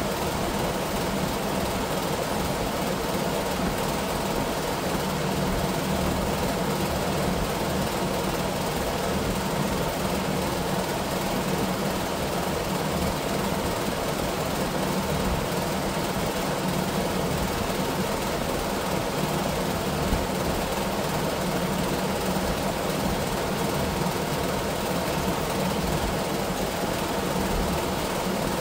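A steady low mechanical hum that runs without a break or change in level.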